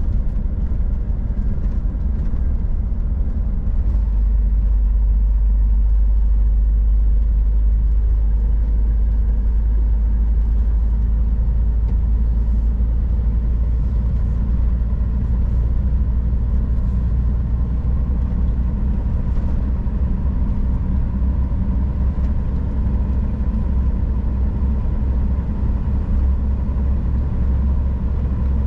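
Scania R440 truck under way, its diesel engine a steady low drone with road noise. The engine note changes and grows a little louder about four seconds in.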